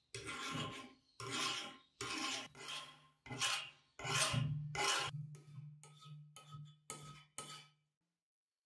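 Steel hand file rasping across the steel head of a sledgehammer clamped in a bench vise, smoothing the surface: about a dozen strokes, growing shorter and quicker toward the end.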